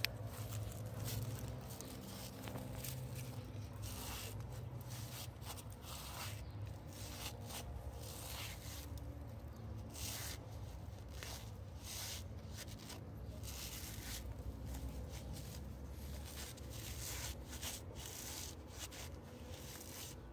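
Sock-covered feet stepping and scuffing on rough stone and dry leaves: irregular crunching and rustling of dead leaves and twigs, with scrapes of fabric on rock, over a steady low hum.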